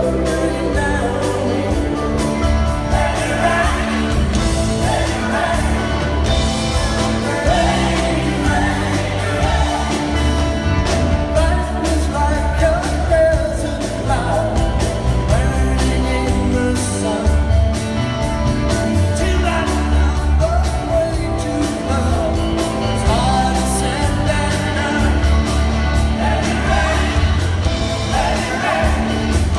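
Live rock band performing, with a man singing lead over electric guitar and the band, heard from the audience in a large hall.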